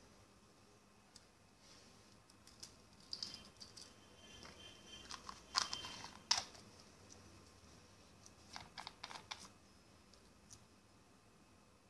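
Light plastic clicks and rattles of small bottle caps being handled and twisted together, scattered through, with the sharpest two clicks a little past the middle.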